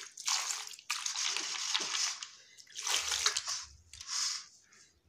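Lasoda fruits being rubbed and stirred by hand in water in a stainless steel bowl, the water sloshing and splashing in several irregular bursts that fade out near the end. The boiled fruits are being washed clean.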